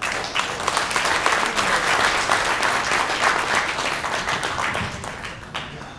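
Audience applauding, starting all at once and dying away shortly before the end.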